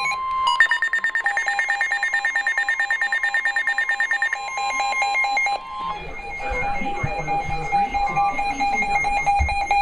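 Emergency alert tones for a new severe thunderstorm warning sounding over one another. A steady alert tone is overlaid from about half a second in by a fast alarm beeping at about nine beeps a second. Both stop together about five and a half seconds in, and a lower steady alert tone follows.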